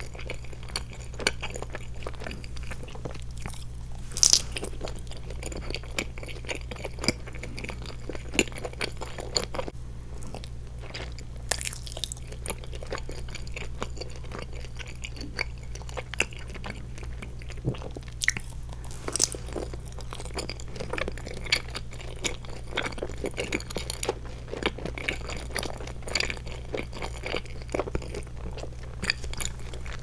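Chewing and biting of a Trolli Planet Gummi, a gummy shell with a red liquid filling: wet mouth sounds with many short sharp clicks, the loudest about 4, 12 and 18 seconds in. A steady low hum lies underneath.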